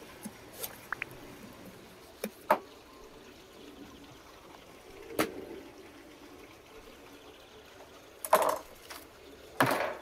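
A large knife cutting into a raw lamb carcass, and the carcass being handled and turned on a wooden board. There are short clicks and knocks through the first half, and two louder, longer scraping handling sounds near the end.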